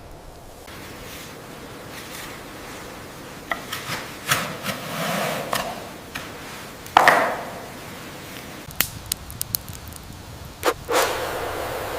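Scattered knocks, clicks and scrapes of wood being handled to build a fire, with a sharp knock about seven seconds in and another near the end.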